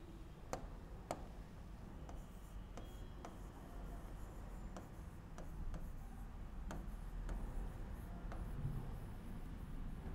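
Stylus tapping and sliding on an interactive touchscreen whiteboard while a word is handwritten: faint, scattered clicks with soft scratching between them.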